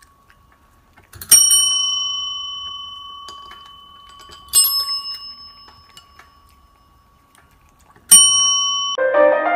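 Chrome desk service bells struck by a cat's paw: three clear dings a few seconds apart, each ringing on and slowly fading, the last one cut short.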